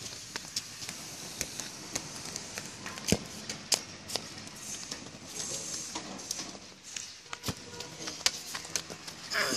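Irregular sharp clicks and taps over a faint steady hiss, the strongest a few seconds in and again near the end.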